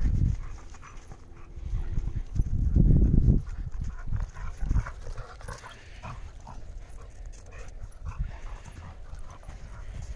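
Dogs playing with a ball on snow and dry grass: a dog panting, with irregular low thuds and rustling of paws and footsteps, heaviest in the first few seconds.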